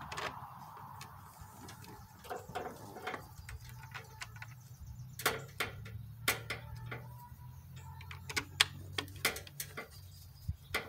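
Scattered light clicks and knocks of a riding mower's plastic engine shroud being handled and pressed into place over the engine, over a faint steady low hum.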